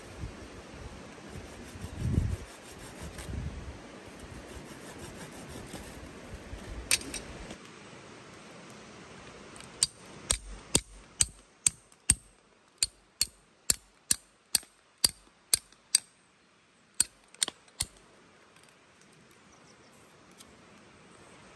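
A knife cutting into a green wooden stick: a run of about sixteen sharp clicks, roughly two a second, in the second half. Before that, low handling noise with a couple of dull thumps.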